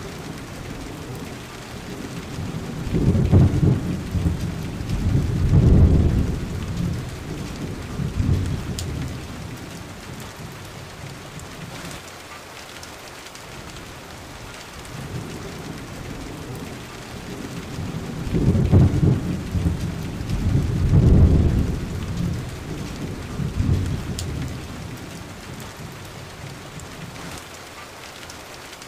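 Thunderstorm: steady rain with two long rolls of deep thunder, one a few seconds in and another about two-thirds of the way through, each swelling in two or three waves before fading back into the rain.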